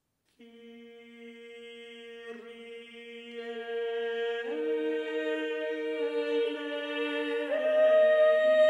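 Slow intro music of long held notes, with new parts entering one after another, about four and a half seconds in and again near the end, growing steadily louder.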